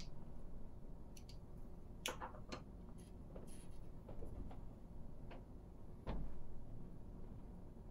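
Scattered light clicks and taps of small model parts, machine screws, washers and a small screwdriver being handled on a table during hand assembly, the sharpest click about two seconds in.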